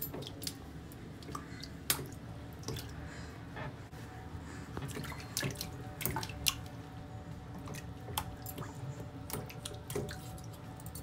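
Water dripping and splashing in a bathroom sink with a baby sitting in it: a scatter of sharp drips and small splashes over a steady low hum.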